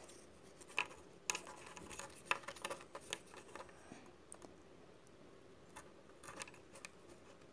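Faint, scattered light clicks and taps of wooden craft sticks and steel pins being handled and fitted together, a few spaced apart and several close together near the end.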